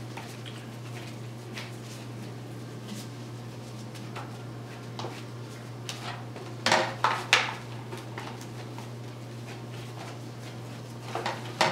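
Disposable aluminium foil pans being handled as ground beef is scooped and patties are set down: light taps and rustles, then a quick run of several louder crinkling clatters about seven seconds in and another just before the end. A steady low hum runs underneath.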